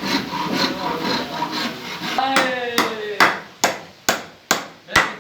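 Wood being hand-sanded, rubbed in even strokes about three a second. About two seconds in it gives way to a run of seven sharp knocks on wood, about two a second.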